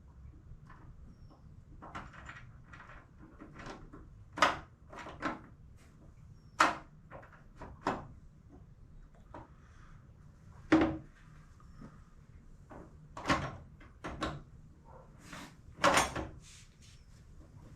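Irregular metal clanks, clicks and knocks of suspension parts and hand tools being handled during hands-on assembly of a strut and caster/camber plate, with a few louder sharp knocks among quieter clicks.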